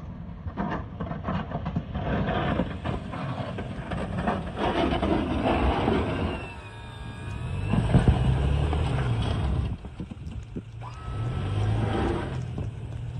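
Toyota Tacoma pickup's engine working under load while its Boss V-plow blade pushes and scrapes snow into a bank. The scraping and engine noise rise and fall in surges, loudest from about eight seconds in.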